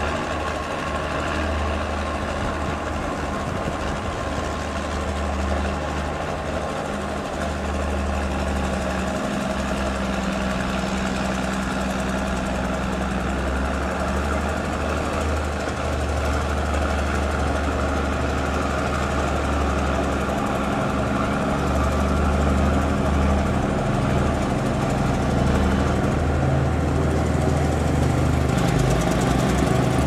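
Bulldozer's diesel engine running steadily, getting a little louder about two-thirds of the way through.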